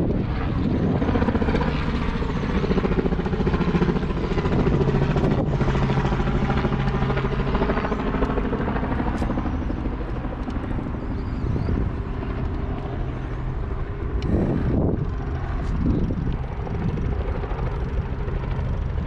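Steady engine drone with an even low hum that eases off after about ten seconds, then a few vehicles pass close by in quick swells.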